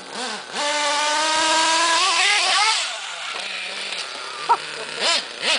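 Thunder Tiger TNX 5.2R 1/8-scale nitro RC truck's engine at full throttle: a loud, steady high-pitched whine that holds for about two seconds, climbs briefly, then drops to a quieter, lower drone. There are short throttle blips at the start and near the end.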